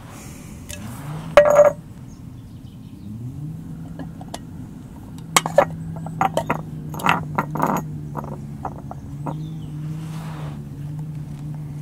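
Light clinks and scrapes of a glass jam jar and its metal lid being handled and set down on paving as a clear plastic bleed pipe is fed through the hole in the lid; the sharpest clinks come about a second and a half in and in a cluster around the middle. A steady low vehicle hum runs underneath.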